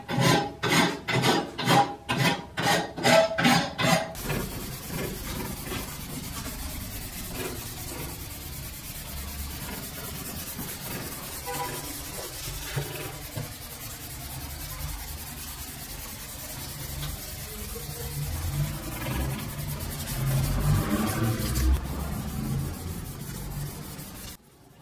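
A hand file rasping across the steel edge of a cleaver blade clamped in a vise, in quick even strokes about two or three a second. About four seconds in this gives way to a steady scratching of sandpaper rubbed by hand over the steel blade, a little louder near the end before it stops suddenly.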